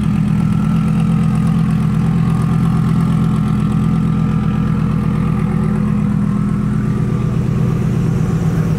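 Twin-turbocharged Lamborghini Huracán V10 idling steadily, heard close to its exhaust.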